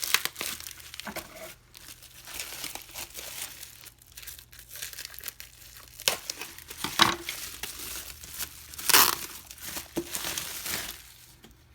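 Packaging being handled and opened: irregular crinkling and rustling with tearing, loudest in two sharp bursts about seven and nine seconds in.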